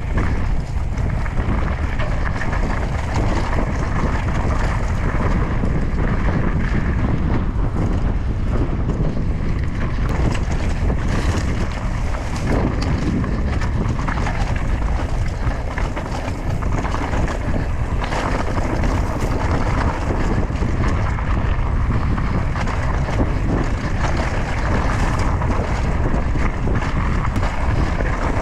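Wind rushing over the camera microphone on a mountain bike ride, a steady heavy rumble, with the tyres running over the trail and short clatters of the bike over rough ground.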